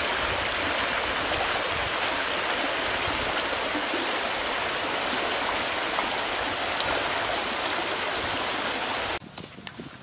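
Shallow rocky stream running over stones: a steady rush of water, with a few faint high chirps over it. It stops abruptly near the end, leaving quieter surroundings and a single sharp click.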